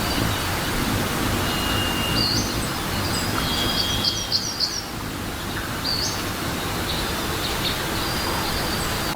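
Birds calling high over a steady hiss of background noise: a held thin whistle, then a quick run of short down-slurred chirps near the middle, and scattered single notes after.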